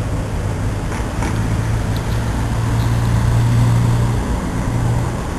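Steady low hum of an idling engine, swelling slightly in the middle, over a low rumble.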